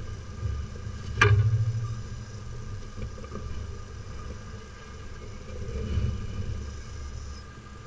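Steady low rumble of outdoor background noise picked up by a security camera's microphone high on a building, with one sharp knock about a second in.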